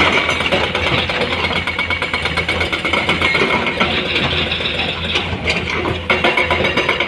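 Heavy diesel engines of Komatsu hydraulic excavators and a dump truck running steadily under load, with a fast, even clatter over a low hum.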